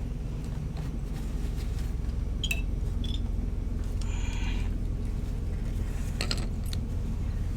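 Ratchet and cap wrench working loose a motorcycle oil filter: scattered metal clicks, a short squeak about two and a half seconds in and a longer squeak about four seconds in, over a steady low rumble.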